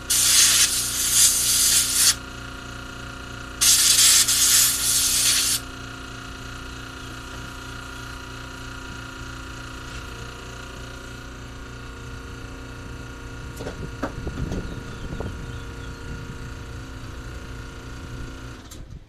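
Two bursts of compressed air hissing from a blow nozzle, each about two seconds long, blowing parts clean, over a steady machine hum. Some quieter handling and rustling noise follows later.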